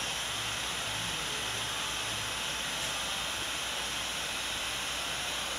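Handheld hair dryer running, blowing a steady rushing hiss of air while drying short hair.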